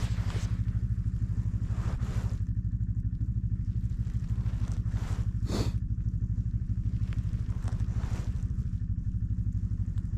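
Snowmobile engine idling with a steady, fast low throb. A few brief scrapes and rustles sound over it.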